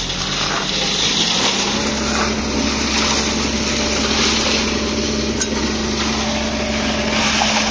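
A small engine running steadily, its note rising slightly about a second and a half in, with a few faint knocks over it.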